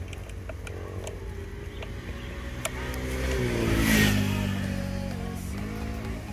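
A motor vehicle drives past: its engine grows louder to a peak about four seconds in, then fades, its pitch dropping as it goes by. There are a few light clicks and background music.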